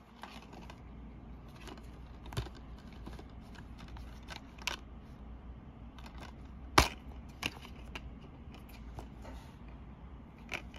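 Plastic DVD cases being handled: scattered light clicks and taps, with one sharp, loud click about two-thirds of the way through as a case is snapped open.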